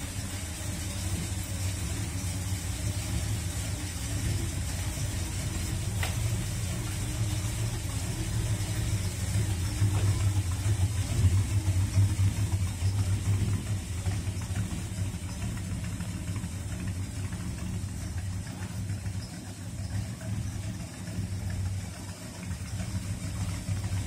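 1955 Chrysler New Yorker Deluxe's engine idling steadily.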